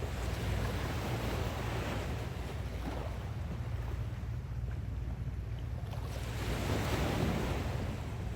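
Ocean waves washing up on a sandy beach, two surges of surf, the second louder near the end, with wind rumbling on the microphone.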